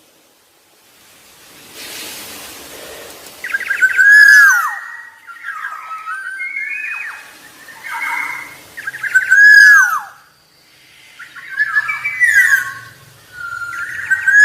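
Black-naped oriole (Oriolus chinensis) singing: loud, fluty whistled phrases that slur downward, repeated three times about five seconds apart, with shorter whistled notes between them. A quieter, harsher rasping call comes about two seconds in.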